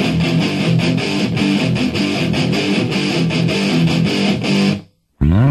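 Guitar-led background music with a steady strummed rhythm. Near the end it stops abruptly and, after a short gap, a rising slide leads into heavier rock music.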